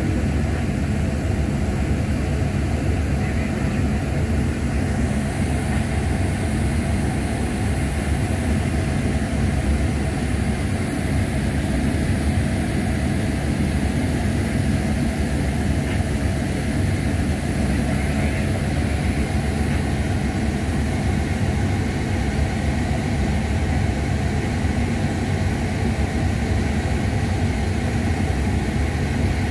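Steady low machine rumble with a faint hum underneath, unchanging throughout.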